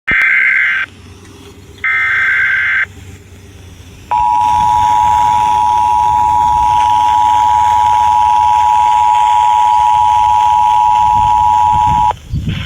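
Emergency Alert System broadcast tones: two short bursts of the digital SAME header data, each about a second long with a second's gap, then the steady two-tone EAS attention signal held for about eight seconds and cutting off abruptly. The tones mark the start of a relayed emergency alert, here a tornado warning.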